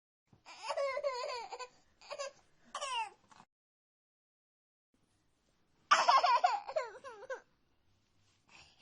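A young child laughing in short high-pitched bursts, then silence for about two seconds, then a louder burst of laughter with falling pitch.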